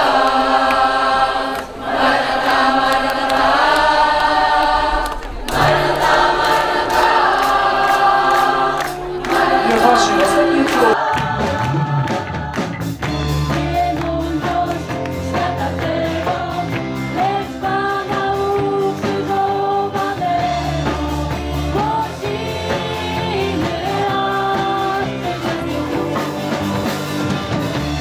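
Mixed-age choir singing a Polish worship song, with a girl's solo voice at the front microphone. The voices carry the first ten seconds or so nearly alone, then an accompaniment with a strong bass line comes in about eleven seconds in.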